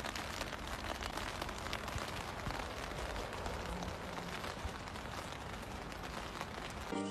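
Steady rain pattering on wet paving stones, an even wash of fine drops.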